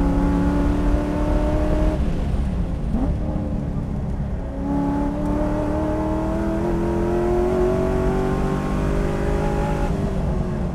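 Stock LS3 V8 of a Corvette Grand Sport under hard acceleration, heard from inside the cabin, its note rising with the revs. About two seconds in the engine drops off as the car slows for a corner, with a brief rev near three seconds. It then pulls up steadily in pitch for about five seconds before lifting off near the end.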